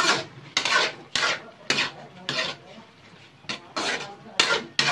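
Metal spatula scraping and clanking against a wide metal pan as a thick pork, string bean and coconut milk stew is stirred. The strokes are irregular, about two a second, with a short pause near the middle.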